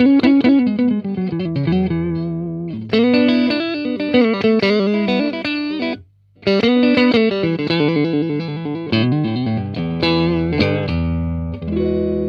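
Clean electric guitar played through a Harley Benton Tube 15 valve amp: picked notes and chords, a short break about six seconds in, and a last chord left to ring near the end.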